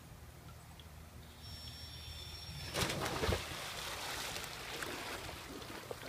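A person in gear with an air tank jumping into a filled inflatable pool: a sudden big splash about three seconds in, then water sloshing and churning.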